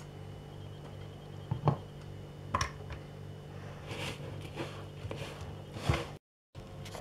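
Hands squeezing and kneading crumbly dough in a glass bowl, making scattered soft squishing and rustling sounds over a low steady hum.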